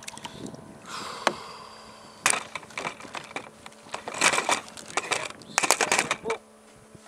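Kayak paddle clattering and knocking against the hard plastic deck of a kayak as it is handled and laid across it, in several quick clusters of sharp knocks.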